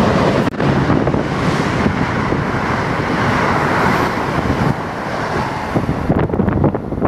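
Amtrak Northeast Regional train hauled by two AEM-7 electric locomotives passing close by at speed, a steady loud rush of wheels and wind. About six seconds in it gives way to quieter sound with a few sharp clicks.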